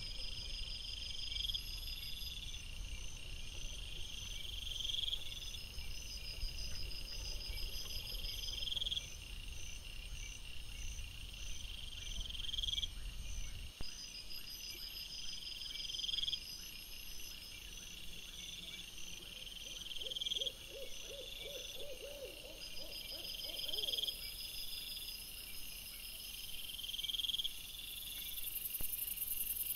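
Crickets chirping at night in steady repeated bursts about once a second, over a fainter, faster high trill. A low rumble runs under the first half and stops suddenly, and a short run of low, rapid pulsing calls comes about twenty seconds in.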